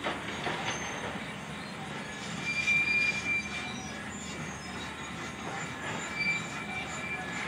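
Excavator demolition noise: steady clatter and rumble with high-pitched metal squeals, the loudest from about two and a half to three and a half seconds in and again about six seconds in.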